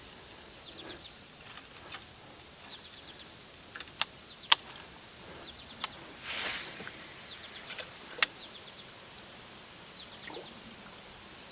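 Quiet outdoor ambience. A short, high chirping call of quick ticks repeats every second or so, and a few sharp clicks stand out, the loudest about four and eight seconds in.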